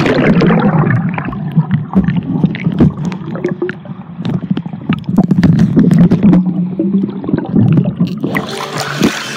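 Water bubbling and churning heard underwater through a phone's microphone in a sealed waterproof case, muffled with the treble cut off, with many small knocks and clicks. Near the end the sound opens up again as the case breaks the surface.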